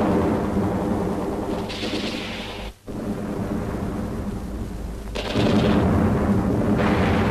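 Battle sound effects: a continuous heavy rumble of explosions. It cuts out briefly about three seconds in and comes back louder about five seconds in.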